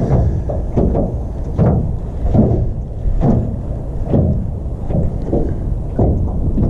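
Wind buffeting the microphone, with small waves slapping against the hull of an aluminum jon boat in rhythmic swells a little more than once a second.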